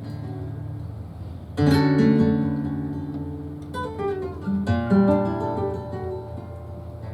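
Flamenco guitar playing the opening of a guajira. Soft ringing notes give way to a sudden loud chord about a second and a half in, followed by plucked phrases and more sharp chords.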